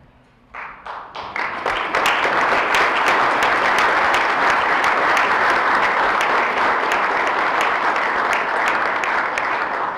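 An audience applauding. A few scattered claps start about half a second in and swell into full, steady applause within a couple of seconds.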